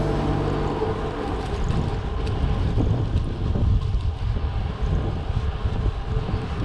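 Wind buffeting the microphone and low tyre rumble on asphalt while riding a Scott Addict 10 carbon road bike. The tail of background music dies away in the first second.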